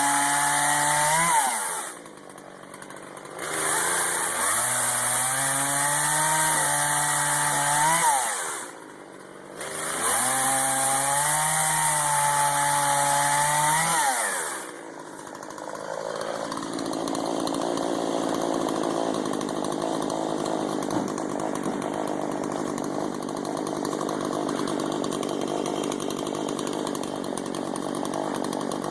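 Two-stroke chainsaw running at high speed in three stretches. The engine note rises sharply at the end of each and then drops away into brief quieter gaps. From about halfway through it settles into a lower, steadier, rougher running sound.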